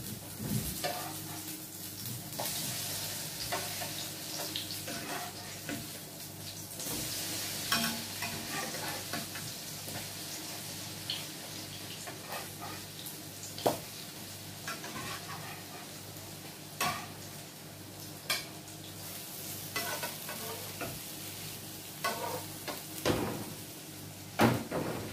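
Potato pancakes sizzling in hot vegetable oil in a non-stick frying pan, a steady hiss, with a utensil clicking and scraping against the pan now and then as they are turned, more often near the end.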